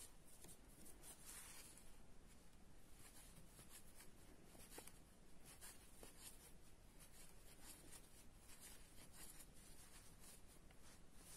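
Near silence with faint, repeated scratching and rustling of a metal crochet hook drawing yarn through single crochet stitches.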